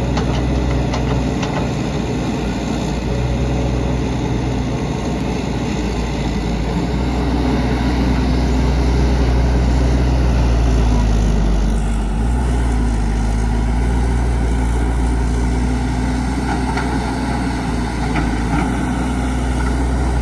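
Heavy diesel engine of earthmoving machinery running continuously. It grows louder for a few seconds midway, then drops back with a shift in pitch.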